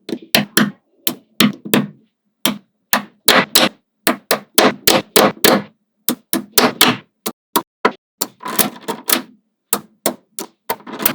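Small magnetic balls snapping and clacking together: irregular sharp clicks, several a second, some in quick clusters with a short metallic ring.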